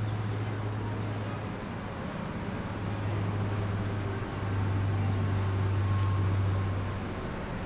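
A steady low engine hum that swells about four seconds in and eases near the end, over general street noise.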